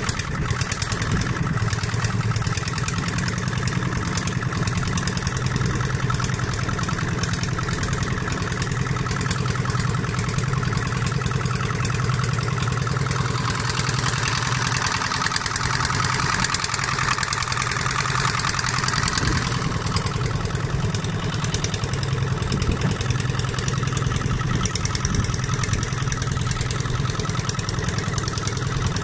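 Small boat engine running steadily at an even pace, pushing the boat along the channel.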